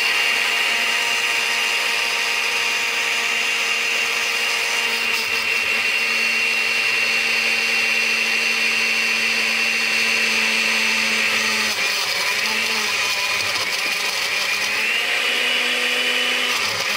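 Oster countertop blender motor running with a steady whine, its pitch shifting a couple of times in the second half before it winds down at the end. The load of strawberries, mixed fruit, spinach and water is slow to catch in the blades, so it is not blending well.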